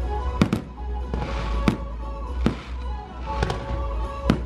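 Aerial fireworks going off in about seven sharp, irregularly spaced bangs, some in quick pairs, over the show's music soundtrack playing continuously.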